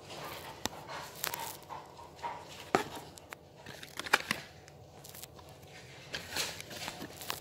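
Kitchen handling sounds: scattered sharp clicks and knocks of containers and utensils being picked up and set down, with short rustling swishes close to the microphone.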